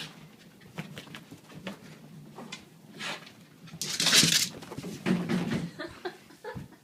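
Scuffling footsteps and rustling movement on carpet as a person and a small terrier run through the house, with a short hissing burst about four seconds in.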